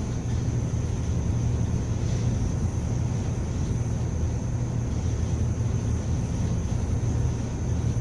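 Steady low rumble of wind and sea rushing along the hull of a cargo ship under way, with a thin high whine running through it.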